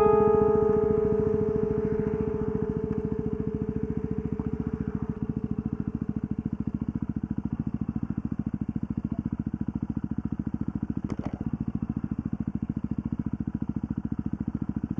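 Yamaha WR250R's single-cylinder four-stroke engine running steadily, an even rapid pulsing. The last note of background piano music fades out over the first few seconds.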